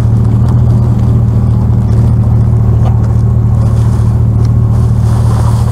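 A loud, steady low mechanical hum, as from a running engine or machinery, with faint crinkling of plastic donut packaging handled in gloved hands.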